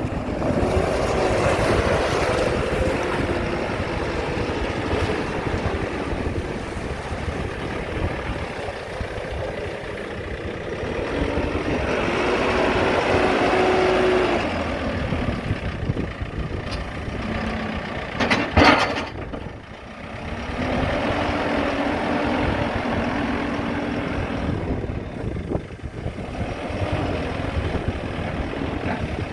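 JCB 3CX backhoe loader's diesel engine running, rising and falling with load as the hydraulics work, with steady whining tones that come and go. About two-thirds of the way in there is a brief, loud, sharp noise.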